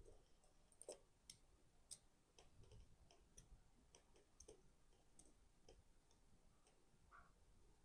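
Near silence with faint, irregular little clicks of fine tools touching a mechanical watch movement while small parts are lifted off.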